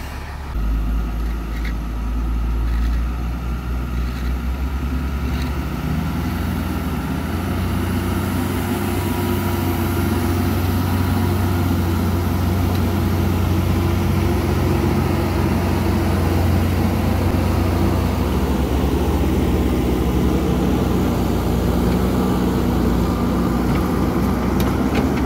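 Diesel engines of a JCB 3DX Super backhoe loader and a loaded Tata 2518 dump truck running hard under load as the backhoe's front bucket pushes the truck uphill. The heavy engine drone steps up about half a second in, grows stronger after about six seconds, then holds steady.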